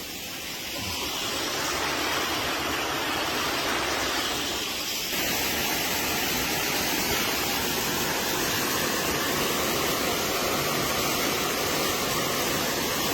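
Waterfall rushing: a steady, loud roar of falling water over rocks.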